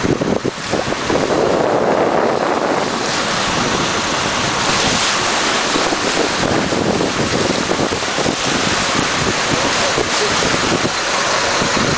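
Turbulent water of the Saltstraumen tidal current rushing and churning around a small boat, a steady loud wash, with wind buffeting the microphone.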